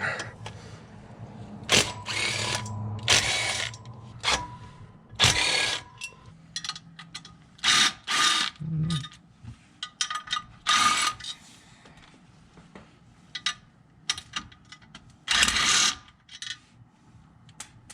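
Power wrench spinning bolts off in a dozen or so short, irregular bursts with pauses between, some with a whine: the clutch pressure plate bolts on a Honda S2000 being removed.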